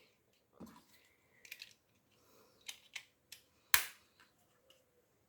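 Hands working a plastic LED headband magnifier: a few faint clicks and taps, then one sharp click a little before four seconds in.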